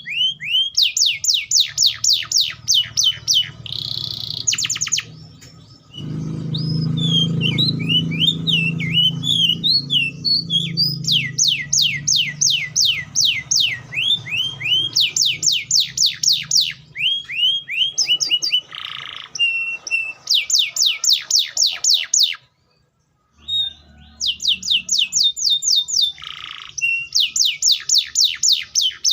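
Canary (Serinus canaria) singing: fast runs of rapidly repeated downward-sweeping notes and trills, the phrase type changing every second or two with short breaks between. The song drops out to silence briefly past the two-thirds mark.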